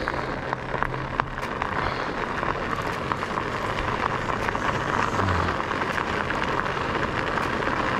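Studded fat-bike tyres of a Norco Bigfoot 3 rolling on paved and icy path: a steady hiss with a fine crackle of small ticks.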